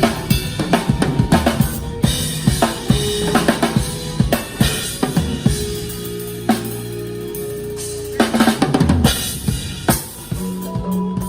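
Drum kit played fast, with busy bass drum, snare and rimshot strokes in flurries, and a sparser passage over held low notes in the middle.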